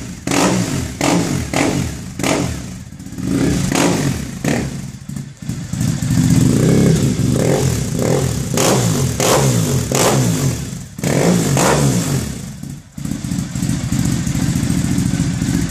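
Triumph Thruxton parallel-twin engine running through a TEC 2-into-1 sprint exhaust, revved again and again with throttle blips that rise and fall back toward idle.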